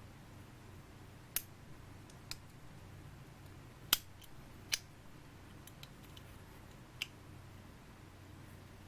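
A handful of sharp, irregularly spaced clicks from a small folding knife being handled, the loudest about four seconds in, over a faint steady hum.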